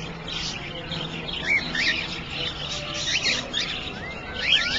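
Small aviary birds chirping: many short, high tweets in quick succession, from more than one bird.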